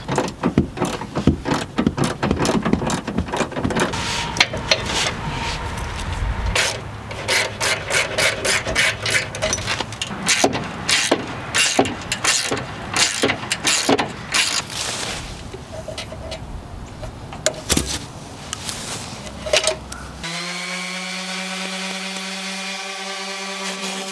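Irregular knocks and clatter of hand work on the truck, then, about 20 seconds in, a handheld orbital sander starts up and runs with a steady whine while sanding a fender flare.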